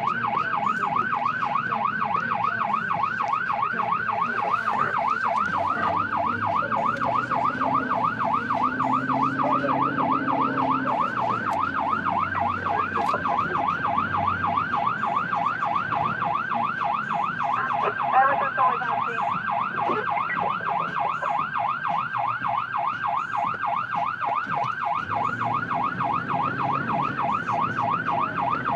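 Fire engine's electronic siren on a fast yelp, rising and falling several times a second without a break, with the truck's engine running underneath. A short louder sound cuts in about two-thirds of the way through.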